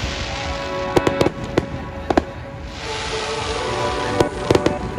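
Fireworks going off: sharp bangs of bursting shells, a quick cluster about a second in, one more a second later, and another cluster near the end, over background music.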